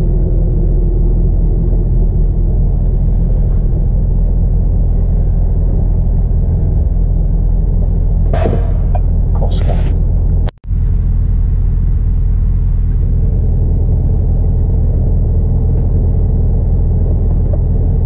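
Scania R450 truck's diesel engine running, a steady low rumble heard from inside the cab. About eight and a half and ten seconds in come two short hiss-like sounds, and just after there is a brief break in the sound.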